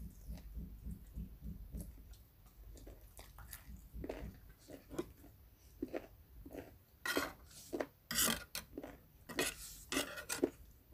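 Chewing, followed by a metal spoon clinking and scraping against a plate as salad is scooped up. The loudest scrapes come in the second half.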